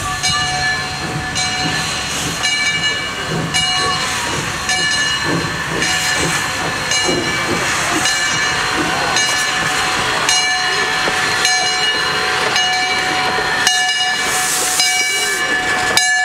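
Lehigh Valley Coal Company #126 steam locomotive moving slowly past, its bell ringing about once a second over a steady hiss of steam.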